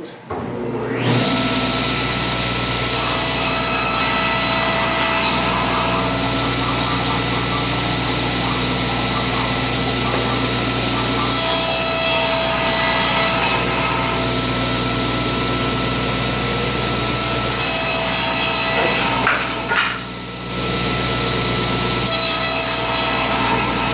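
Table saw starting up about a second in, then running steadily while its blade cuts into a wooden board. The hissing cutting noise comes and goes, with a brief lull about 20 seconds in.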